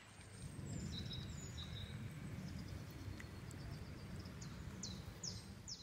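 Small birds chirping, with several short falling calls near the end, over a low, rough rumble.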